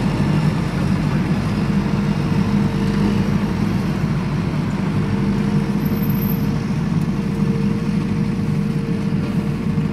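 A steady low engine-like drone with a faint higher hum above it, unchanging in level.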